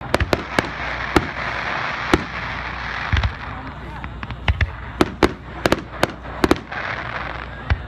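Phantom Fireworks display: a rapid, irregular run of sharp bangs from aerial shells launching and bursting, about twenty in all, over a steady hiss.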